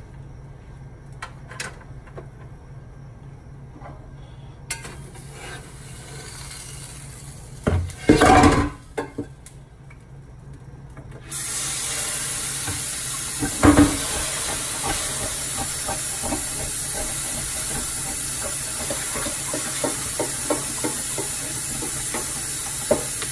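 Pan and utensil knocks in a kitchen. About eleven seconds in, a steady loud sizzle starts suddenly and holds: a ham sandwich frying in the pan.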